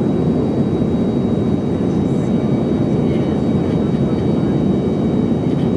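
Steady cabin noise of a passenger jet in flight: the even rush of engines and airflow heard from a window seat, with a faint steady high whine above it.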